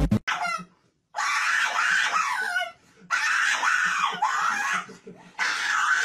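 Small dog screaming in fear while held for a vet exam: three long, high, wavering screams of about two seconds each, with brief breaks between them.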